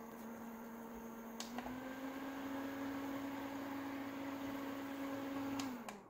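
Thunlit portable air-cooler fan running with a steady motor hum and a light rush of air. A click about a second and a half in, after which the hum rises a little in pitch. Near the end the hum drops and stops as the fan is switched off.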